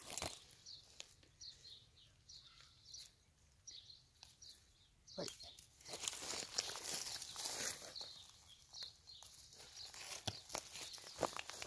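Rustling and scattered light footsteps in grass and dry leaves, louder in the second half.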